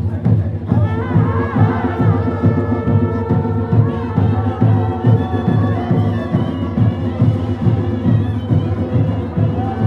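Background music with a steady, driving drum beat of about three beats a second under held tones and a wavering melody.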